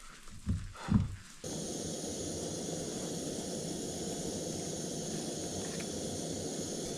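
A few soft handling knocks, then, about one and a half seconds in, the steady rushing hiss of an MSR WhisperLite white gas stove burning under a pan starts abruptly and holds at an even level.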